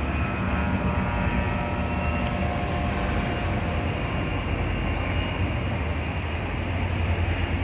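New Jersey Transit diesel locomotive passing on an elevated rail bridge. Its engine drone carries a whine that drops slightly in pitch and fades over the first three seconds, over a steady low rumble.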